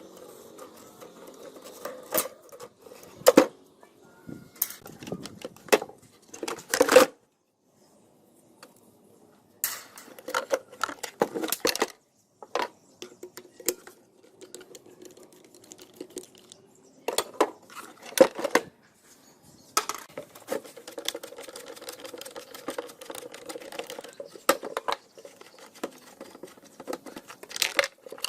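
Irregular clicks, clinks and knocks of metal parts being handled and worked on an old rusty electric fan, with a faint steady hum underneath.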